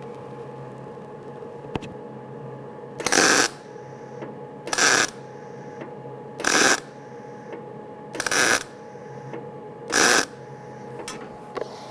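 MIG welder stitch welding thin sheet steel: five short bursts of the welding arc, each about half a second, spaced about a second and a half to two seconds apart, each one a single spot weld overlapping the last to close the seam.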